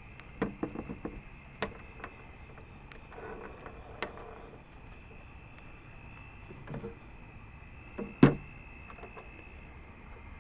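Crickets chirping steadily, with a few sharp clicks and knocks of something being handled, the loudest about eight seconds in.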